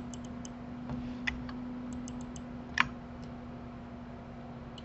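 Scattered light clicks of a computer mouse, one sharper click near the middle, over a steady low electrical hum.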